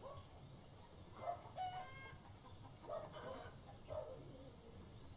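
Chickens clucking faintly: several short, separate calls spread across a few seconds.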